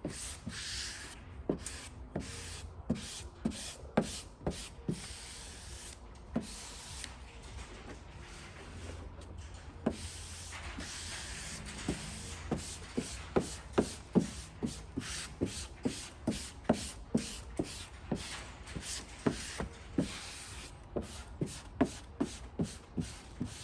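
Hand squeegee sweeping across matte air-release vinyl wrap film to press it down onto a truck hood: repeated short rubbing strokes, about two a second, with a longer continuous rub in the middle.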